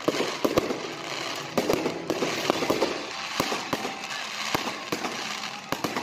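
Aerial fireworks display: shells bursting overhead with irregular sharp bangs, several in quick succession, over a continuous crackle.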